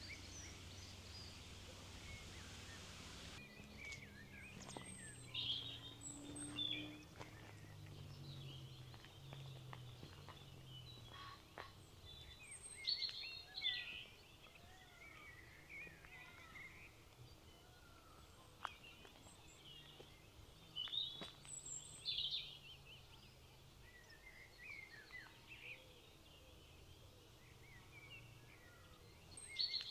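Small songbirds chirping and trilling on and off, in short bursts of song with quiet gaps between. A faint low hum runs under the first dozen seconds.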